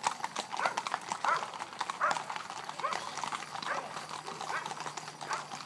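Many horses walking on a paved road, their hooves clip-clopping in an irregular patter of overlapping strikes.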